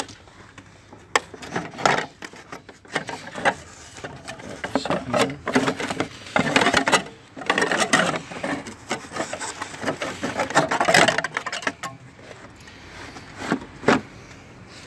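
Plastic radiator fan shroud being worked loose and lifted out of a BMW E39 engine bay: irregular scraping and rubbing of plastic against surrounding parts, with sharp clicks and knocks. It is busiest in the middle and thins out to a few knocks near the end.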